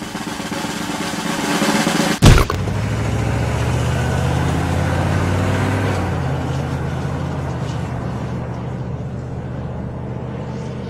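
A rising whoosh builds to one sharp hit about two seconds in. A steady low vehicle engine rumble follows and slowly fades.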